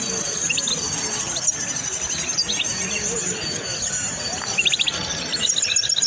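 Small songbird chirping in short bursts of quick notes, then breaking into a fast, repeated high twittering run near the end, over a steady high background chatter of many birds and low voices.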